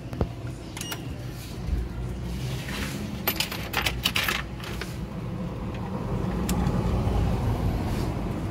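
Sharp metallic clicks and clinks from handling a steel desktop PC case, clustered about three to four and a half seconds in, over a steady low rumble.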